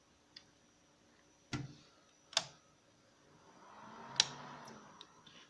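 A few sharp plastic clicks and knocks, about a second apart, from hands working connectors and cables on a desktop motherboard, with a soft rustle of handling around the loudest click near the end.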